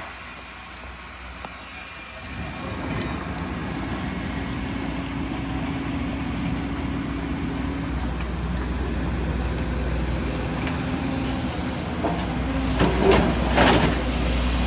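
Kobelco hydraulic excavator's diesel engine running steadily as it digs, louder from about two seconds in. Near the end a quick run of clanks and scrapes as the steel bucket strikes rock and stones.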